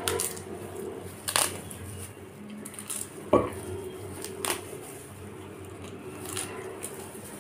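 Close-miked eating: wet chewing and mouth noises, with a few sharp smacks or crunches. The loudest comes about three and a half seconds in, with quieter ones about a second and a quarter in and four and a half seconds in.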